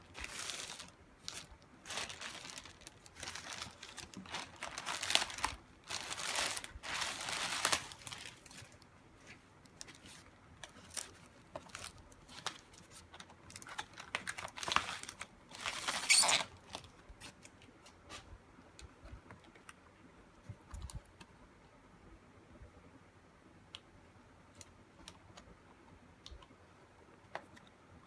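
Packaging crinkling and rustling in repeated bursts over roughly the first half, then scattered light clicks and taps.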